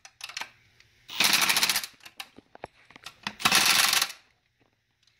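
Ratchet wrench clicking in two quick runs of rapid clicks, each under a second, as the bolts of a new oil cooler are run down and tightened.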